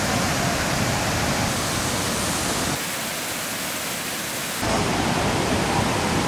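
Waterfall rushing, a steady dense sound of falling water. About three seconds in it turns thinner and hissier, losing its low rumble, and after about two seconds the full sound returns.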